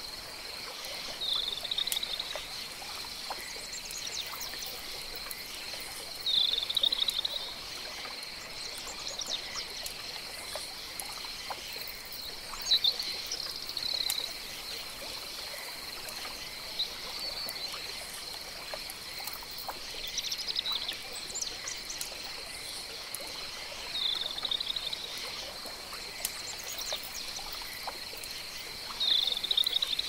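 Pond ambience: water trickling under a steady high whine, with a short chirping animal call repeated about every five to six seconds and a few faint higher bird chirps.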